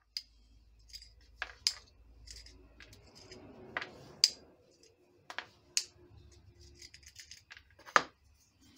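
Small rusty nuts and bolts clicking irregularly against a magnet on a wooden stick and against each other as it is poked through a pile of fine plasterer's sand, with a light gritty scraping. The sharpest click comes near the end, as the parts are picked off the magnet by hand.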